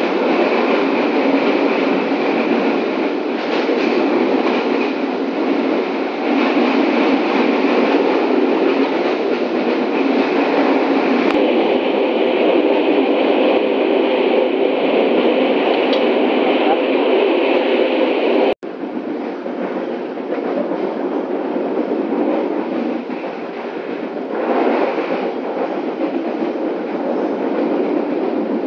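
Passenger train running at speed, heard from inside the carriage: a loud, steady noise of the wheels on the rails and the moving coach. The sound drops out for an instant about two-thirds of the way through.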